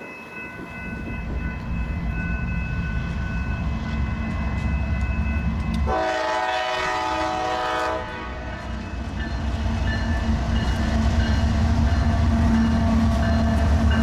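Approaching freight train led by GE diesel locomotives: a low engine rumble that grows steadily louder. Roughly halfway through, the locomotive horn sounds once for about two seconds.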